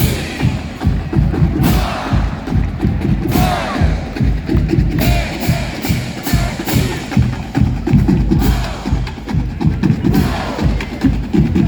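Marching band playing a loud brass tune over a driving drumline with bass drums, and a cymbal crash about every second and a half to two seconds.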